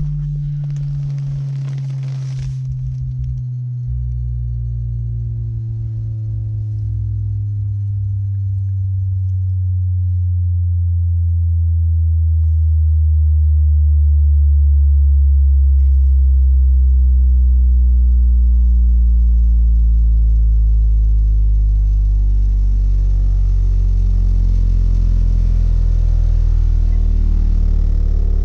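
Two Skar Audio 18-inch subwoofers in an infinite-baffle car install, heard in the cabin, playing a slow falling sine-wave bass sweep from about 150 Hz down past 35 Hz. The tone glides steadily lower with overtones above it and grows louder toward the middle as it nears the cabin's peak frequency.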